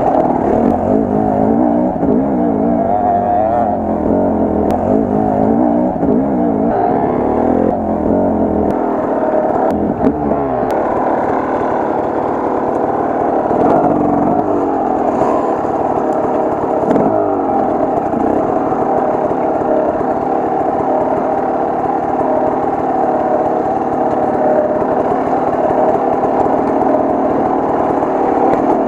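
Enduro motorcycle engine revving up and down as the bike is ridden over rough ground, with the pitch rising and falling many times in the first ten seconds, then running at a steadier speed.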